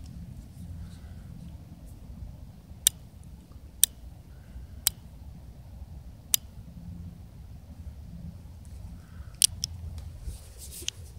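About five sharp single clicks, a second or more apart, from handling a .22 pistol, over faint outdoor background noise. No shot is fired.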